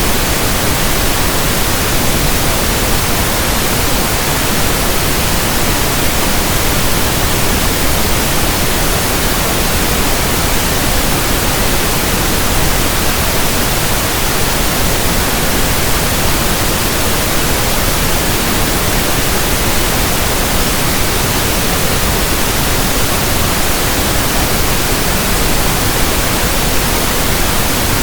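Loud, steady synthetic pink noise: an even hiss that does not change.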